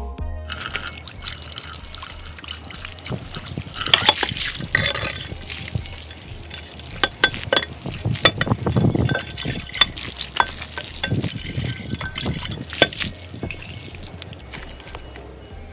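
Water running from an outdoor garden tap into a stainless steel pot and splashing in and off it as the pot is rinsed out, with many sharp splashes. It starts about half a second in and fades near the end.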